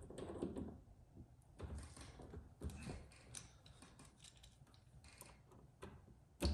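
Faint, scattered metallic clicks and handling noises as a new ignition lock tumbler is fitted into the steering column of a VW Mk1 Rabbit.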